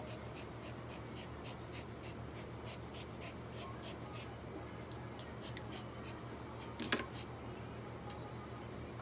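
Brush strokes through a long-haired dog's coat, a quick run of short, crisp scratches at about three or four a second that thins out after a few seconds. A single sharp knock comes about seven seconds in, over a steady low hum.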